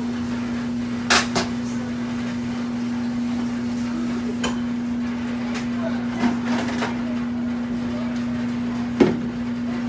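Glass pan lid set down on an electric coil stove top with a sharp clack about a second in, followed by a few lighter clicks and another knock near the end, over a steady electrical hum.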